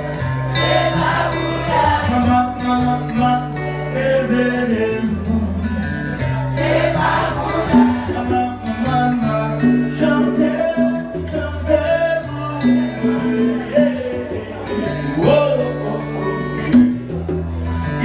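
Live acoustic music: a man singing into a microphone, accompanied by acoustic guitar over a steady, deep bass line.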